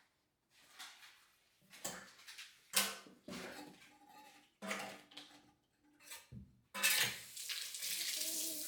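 Dishes and cutlery clinking and knocking in a string of separate clatters as they are handled. About seven seconds in, a kitchen tap is turned on and water runs steadily.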